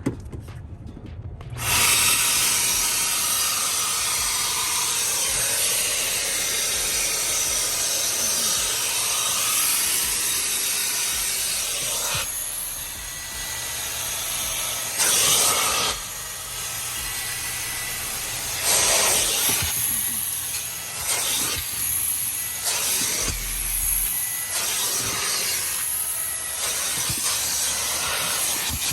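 Hart 3-in-1 wet/dry vacuum extractor switched on about two seconds in, then running with a steady rushing hiss as it sprays and sucks cleaning solution back out of fabric. The sound surges and dips with each stroke of the nozzle.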